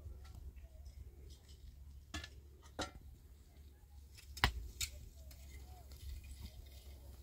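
A few scattered sharp clinks and knocks, the loudest about four and a half seconds in, over a low steady hum.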